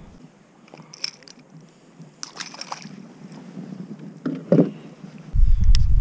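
Small clicks, rattles and knocks from handling gear in a fishing kayak, with a dull knock about four and a half seconds in. Near the end, wind starts buffeting the microphone, and that rumble is the loudest sound.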